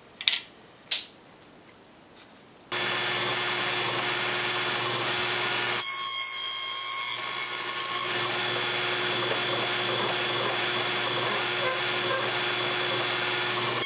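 A couple of light knocks, then about three seconds in a table saw comes in suddenly and runs steadily, its blade cutting quarter-inch box joint slots through four boards clamped in a sliding box joint jig. The sound shifts a little about six seconds in as the jig moves through the blade.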